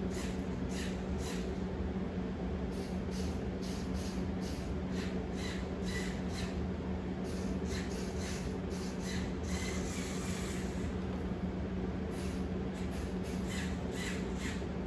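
Mould King 13106 brick-built RC forklift driving, its electric motor giving a steady hum with irregular sharp clicks, a few a second, from its gears skipping. The owner puts the clicking down to a gray 20-tooth gear whose hole is too big, so it loses mesh.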